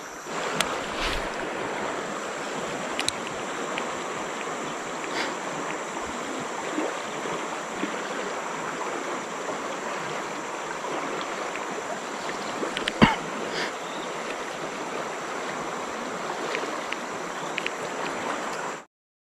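River water running over shallow rapids as a steady rush, with a few faint clicks and one sharp knock about thirteen seconds in. The sound cuts off abruptly near the end.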